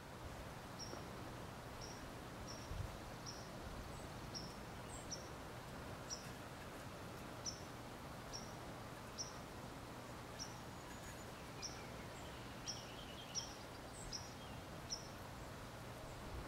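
A small bird repeats a short, high chip note about once a second, with a brief quicker twitter about two-thirds of the way through. Under it runs a faint steady low hum.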